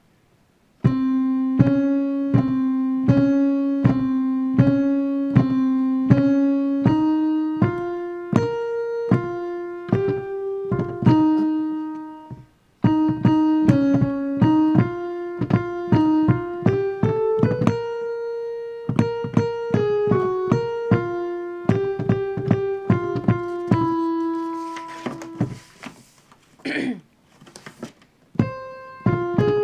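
Piano playing a single-line melody note by note in the alto range, like a choir part being played out for learning. There is a brief break about halfway through, and a few thuds near the end.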